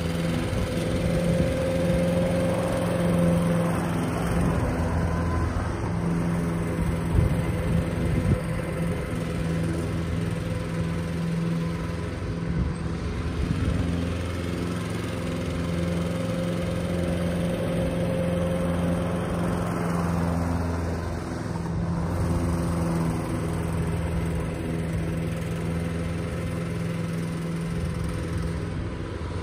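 Toro ProStripe 560 walk-behind rotary mower's petrol engine running steadily at cutting speed while mowing grass, growing a little louder and softer as the mower goes back and forth across the lawn.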